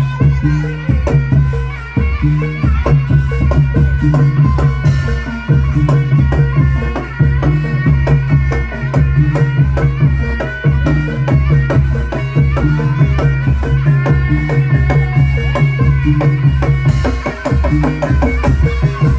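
Live Javanese folk music from a traditional ensemble: a steady, dense drum pulse with rattling percussion under a sustained melody line.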